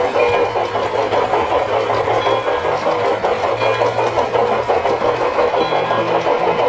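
LGB garden-scale model train running along its track, heard from on board: a steady motor hum with a constant fine rattle of the wheels and cars on the rails.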